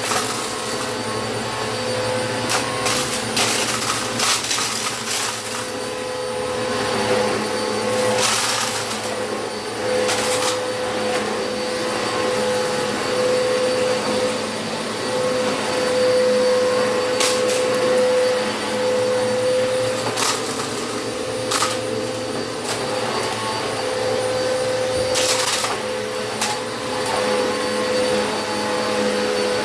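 WAP Power Speed 2000-watt vacuum cleaner running with a steady, noisy hum while sucking up dirt and cat hair, with several brief louder bursts of hiss.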